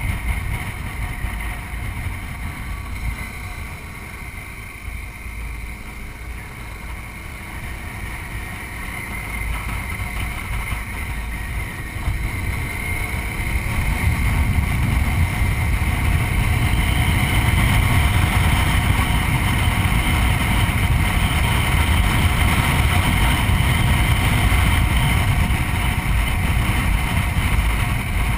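BMW motorcycle engine running under way, mixed with wind and road noise on a bike-mounted camera. It grows louder about twelve seconds in.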